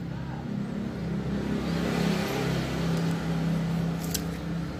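Motorcycle engine running close by, growing louder through the middle and easing off near the end. A short click comes about four seconds in.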